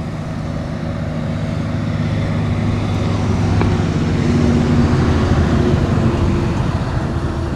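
Road traffic: a passing motor vehicle's engine and tyre noise, a steady low rumble that swells to its loudest a little past the middle and then eases off.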